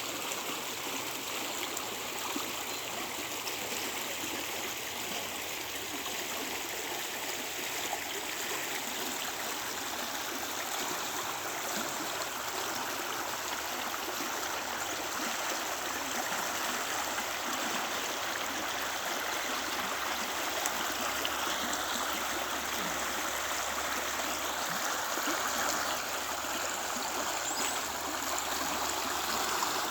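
Creek water flowing and splashing over rocks, a steady rushing babble.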